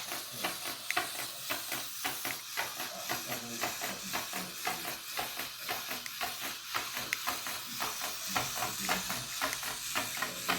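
Hexbug remote-control robot spider walking: its small geared motor and plastic legs make a rapid, steady clicking over a constant hiss.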